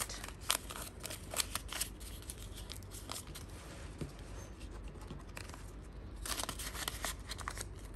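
Crinkling and rustling of Qatari riyal polymer banknotes and a paper cash envelope being handled and folded: a run of small, crisp crackles, busiest near the end.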